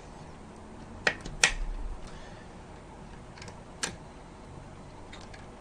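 Sharp plastic clicks as a Trident Z RAM stick is pressed down into a motherboard memory slot: two about a second in, the second the loudest, then a faint one and another near four seconds.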